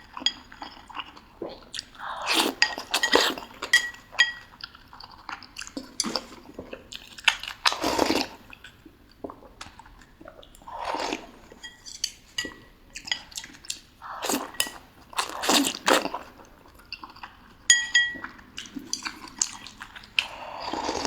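Close-miked chewing and biting of boiled dumplings in sour soup, in irregular bursts. A utensil gives several short ringing clinks against a bowl.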